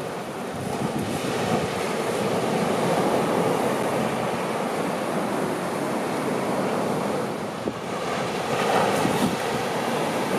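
Steady rushing noise of surf washing onto a beach, with wind buffeting the microphone.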